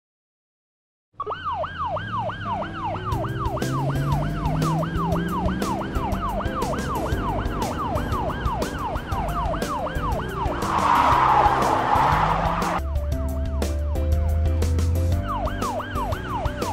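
Ambulance siren yelping fast, about two to three wails a second, over background music with a steady beat. It starts about a second in, after a brief silence. It breaks off for a couple of seconds near the end and then starts again.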